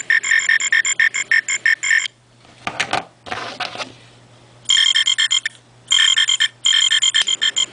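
The electronic sound chip of a novelty frog butane torch lighter plays a fast, beeping, trilled croak, about ten pulses a second. It stops about two seconds in, two short hissy bursts come near the three-second mark, and the trilling starts again in stretches from about five seconds.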